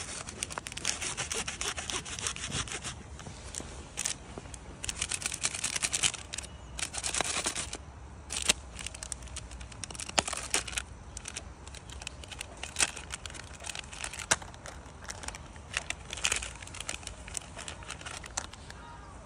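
Plastic food wrapper crinkling and rustling as a macaque bites and tears it open. Dense bursts of crinkling fill the first half, then sparser sharp crackles.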